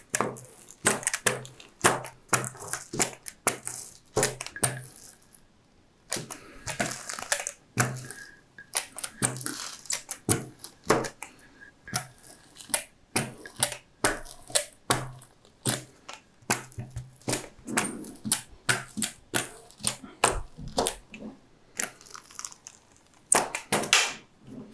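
Hand rubber roller pushed back and forth under firm pressure over paper laid on a freshly glued canvas, the paper crinkling and rustling with each stroke. It is pressing the canvas down into the glue on the board.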